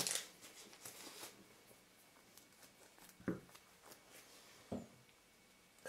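Gloves being pulled onto the hands: faint rustling with a few light ticks, then two short soft knocks, one a little past three seconds in and one near five seconds.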